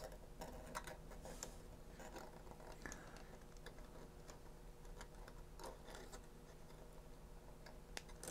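Faint, scattered clicks and taps of small robot-car kit parts being handled and fitted together by hand, the clearest near the end, over a low steady hum.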